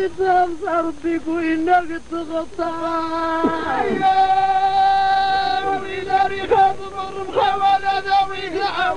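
A man singing a Tamazight chant solo in a high voice, in ornamented phrases, with one long held note in the middle.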